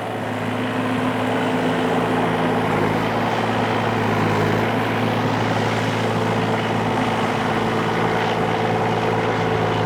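Excavator's diesel engine running steadily at raised throttle, a low, even drone, while its hydraulics hold one track of the machine off the ground.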